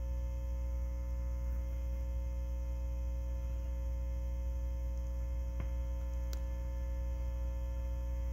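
Steady mains hum from a vintage RCA Victor tube radio's speaker, with two faint clicks a little past the middle.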